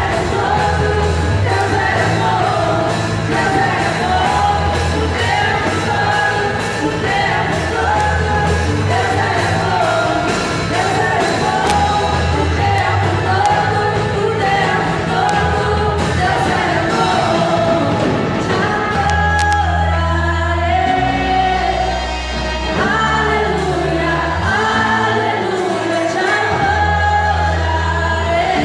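Live worship band and singers performing a gospel song: sung melody over bass and a steady drum beat, the drums dropping back a little past halfway while the bass notes carry on.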